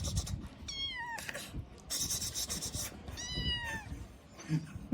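A two-month-old kitten meowing twice, each meow a short call falling in pitch, with a brief rustle between them.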